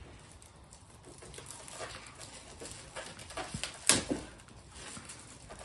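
Plastic packaging film crinkling and rustling as it is peeled off an EV charger's unit and cable, with scattered small clicks and one sharp crack about four seconds in.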